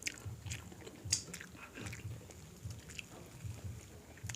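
A person chewing and biting food close to the microphone: small crisp clicks over a soft low beat of the jaw, about two chews a second.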